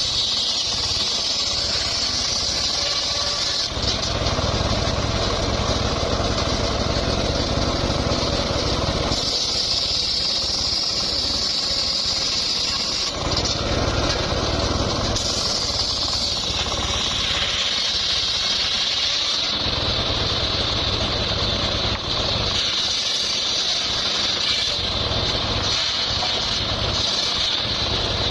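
Engine-driven saw running continuously and cutting mahogany wood: a steady low engine drone under a high blade whine that strengthens and shifts pitch several times as the cuts go in and come out.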